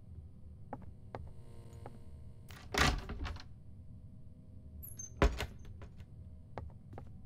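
A few light knocks and two louder thumps, the first about three seconds in, the second a little after five seconds.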